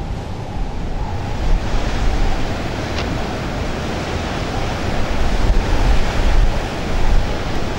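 Heavy storm surf breaking and washing over granite rocks in a continuous rush of churning water, with strong mistral wind buffeting the microphone in deep, uneven gusts.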